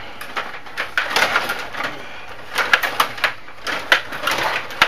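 Stiga table hockey game in play: metal control rods being pushed, pulled and spun in the plastic board, with plastic players clacking against the puck and the boards. The result is irregular rapid clicks and clacks with short rattling scrapes.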